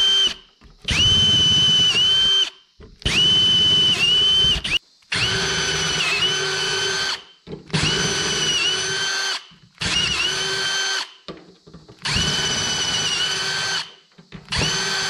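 SATA cordless drill boring holes through clamped 16-gauge sheet steel with an 8 mm bit: about seven runs of steady motor whine, each a second or two long with short pauses between. The pitch dips briefly now and then as the bit bites.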